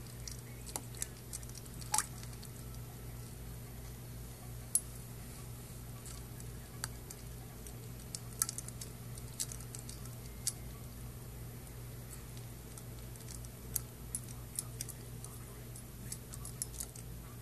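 Ice cubes clinking and knocking against a stainless steel water bowl as a Maltese puppy noses and paws at them in the water: irregular sharp clicks, a few louder knocks, with some wet sloshing. A steady low electrical hum runs underneath.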